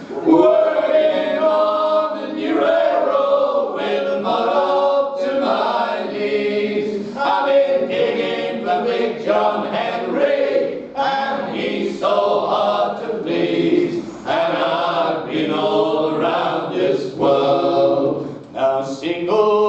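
Four men singing a traditional folk song a cappella in close harmony, unaccompanied, in continuous phrases with short breaths between lines.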